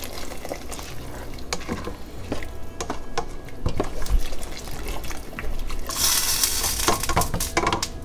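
Water poured from a plastic jug into a hot stainless steel pot of soaked basmati rice frying in spices, splashing and hissing, with a spatula scraping and knocking against the pot as it stirs. About six seconds in, a louder hiss lasts for about a second and a half.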